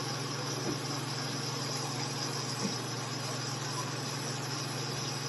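Diced chicken breast, mushrooms and mixed vegetables sizzling steadily in a pan, cooking down until the juices are gone, over a low steady hum.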